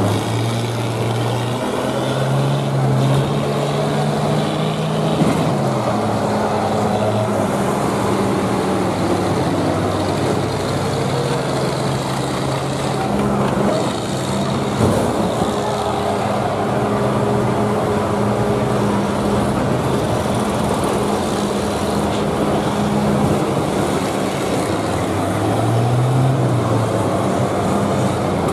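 Engines of several old combine harvesters running and revving, rising and falling in pitch as they ram one another. Two sharp crash knocks stand out, about five and fifteen seconds in.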